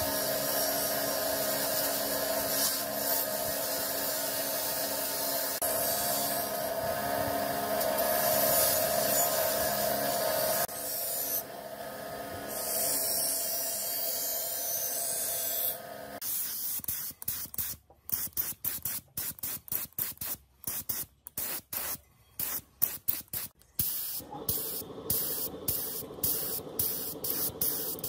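Bench grinder running with a wheel scrubbing a metal speaker mounting plate, a steady motor hum under a rough rubbing hiss. From about sixteen seconds in, a paint spray gun hisses in short bursts, then sprays more steadily near the end.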